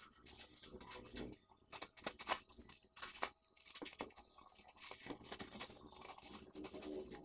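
Scissors snipping through a gold glitter sheet, a run of short, irregular cuts.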